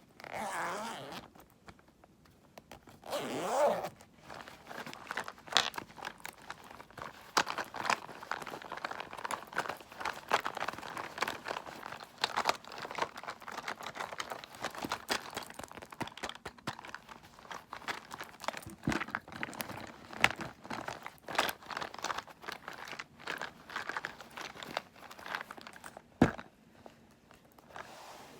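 Cosmetics and their packaging handled close to the microphone: two short rasping sweeps in the first few seconds, then steady crinkling and crunching with scattered sharp clicks, ending in one sharp click shortly before it goes quiet.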